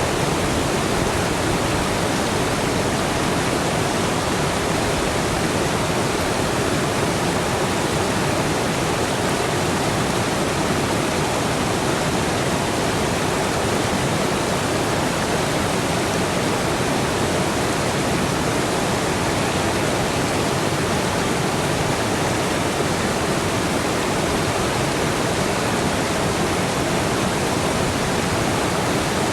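Rushing water running steadily, an even, unbroken hiss.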